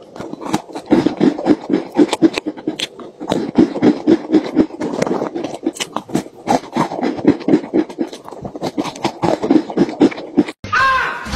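A man chewing and crunching Oreo cookies noisily, right at the mic, with scraping of hands and cookies against a metal tin that makes it sound hollow.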